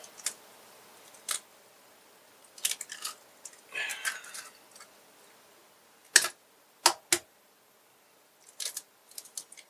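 Eggs being cracked on the rim of a glass mixing bowl: a series of sharp taps of shell on glass and shells breaking open, the loudest three taps a little past halfway through.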